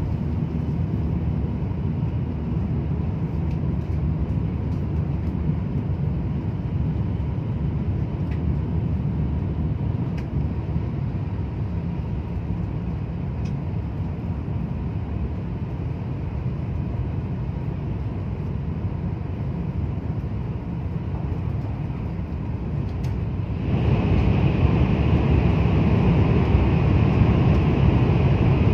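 Steady low rumble inside a Shinkansen bullet train's cabin at speed. Near the end it suddenly becomes louder and harsher as the train enters a tunnel.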